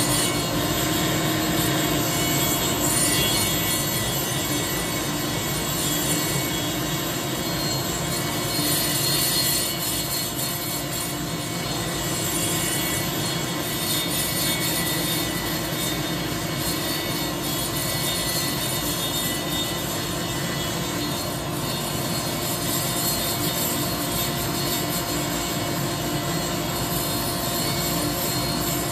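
Small high-speed die grinder running steadily while grinding the ports of a chainsaw cylinder: a constant whine over a hiss.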